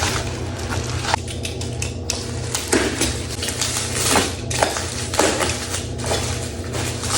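Packaging being opened and handled: irregular crinkling, rustling and clicks of cardboard and plastic, over a steady low hum.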